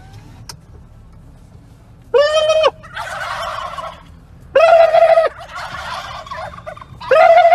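Three loud, steady-pitched vehicle horn honks. After each of the first two, the flock of wild turkeys answers with a second of massed gobbling.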